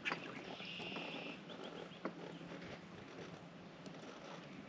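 Faint outdoor ambience by the water: a short, high buzzing trill about half a second in, lasting just under a second, and a few light knocks.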